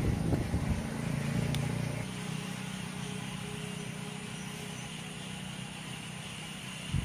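A steady low machine hum, louder for the first two seconds and then dropping abruptly to a quieter, even hum.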